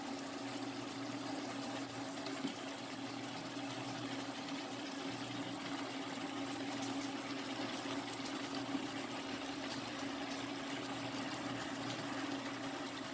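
Chicken pieces sizzling and bubbling gently in their own juices in a pan on an induction cooktop, a steady hiss over a steady low hum.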